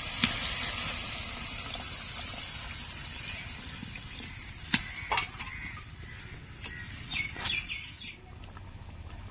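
Hot pan of fried masala and potatoes hissing as water is added, the hiss dying down over the first few seconds. A few sharp clicks of a utensil against the pan, two of them about five seconds in, and a bird chirps briefly near the end.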